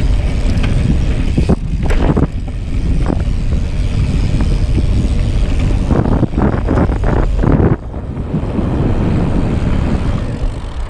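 Wind buffeting an action-camera microphone on a mountain bike riding fast down a dirt trail, over a steady rumble from the tyres. Bursts of clattering from the bike come about two seconds in and again from about six to seven and a half seconds.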